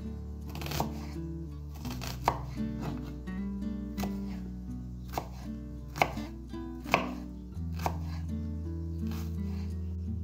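Knife chopping onion on a wooden cutting board, single cuts about once a second with a sharp knock of the blade on the board at each, stopping near the end. Soft background music runs underneath.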